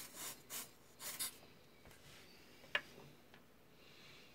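Soldering at a bench: several quick scratchy rubbing strokes in the first second or so, a single sharp click a little before three seconds in, then a faint hiss near the end as the soldering iron and solder meet the ESC's motor-wire pad.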